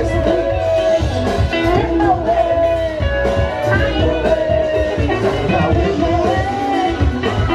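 Upbeat dance music: a singer over electric guitar and a steady drum beat.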